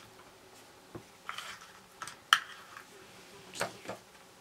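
Handling of a metal Crop-A-Dile hole punch and eyelet-setting pliers against a paper tag on a wooden desk: a sharp metal click a little over two seconds in, with lighter taps and paper rustles around it.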